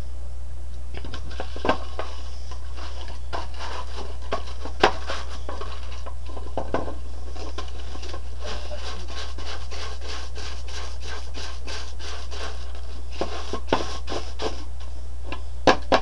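A stiff-bristled brush scrubbing the slotted plastic needle-bed sections of a Bond Ultimate Sweater Machine knitting machine: a quick, irregular run of scratchy strokes that loosens dust from the needle slots, over a steady low hum, with a few sharper knocks near the end.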